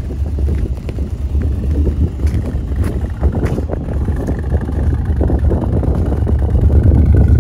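Maserati 3200 GT's 3.2-litre twin-turbo V8 running at idle through its quad exhaust, a steady low rumble that grows a little louder near the end.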